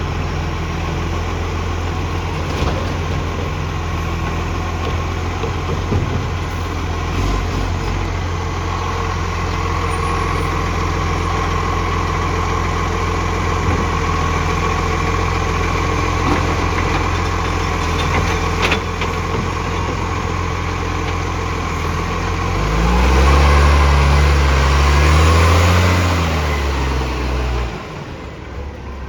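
Garbage truck's diesel engine idling with a leaking exhaust. About three-quarters of the way through it revs up and runs louder for several seconds, then drops back sharply.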